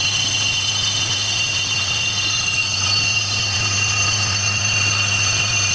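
Lathe running steadily while turning a Toyota Mark X brake disc. It gives a constant low hum under several steady high-pitched ringing tones from the cut.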